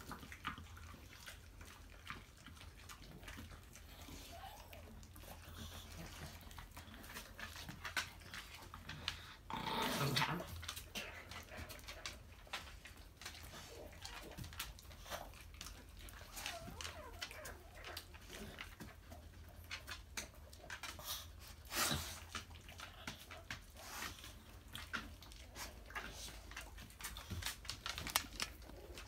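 Dogs moving about on a hardwood floor, with many scattered light clicks and snuffles. There is a louder breathy dog sound, about a second long, around ten seconds in, and a sharper one around twenty-two seconds.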